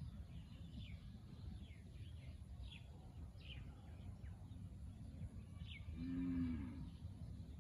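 Small birds chirping, a run of short, quick falling notes, over a steady low background rumble. About six seconds in, a louder, brief low-pitched call rises and falls.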